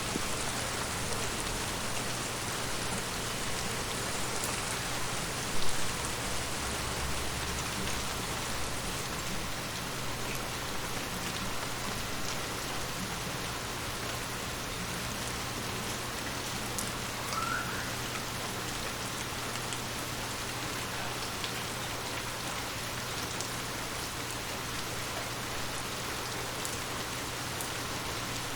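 Steady rain falling, an even hiss with a low steady hum beneath it. A single sharp knock sounds about six seconds in.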